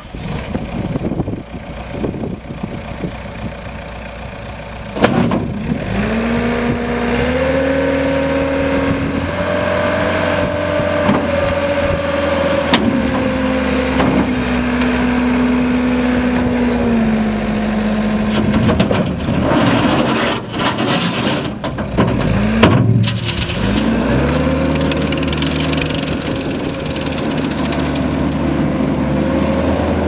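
Caterpillar 287 compact track loader's turbocharged diesel engine running. About five seconds in it is throttled up, and its pitch rises and falls as the lift arms raise the bucket and the machine moves. Near the middle it drops with a couple of knocks, then climbs back to a steady high note.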